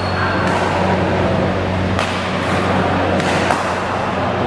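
Badminton hall room noise between rallies: a steady low hum under a dense background noise, with a few sharp knocks about two and three and a half seconds in.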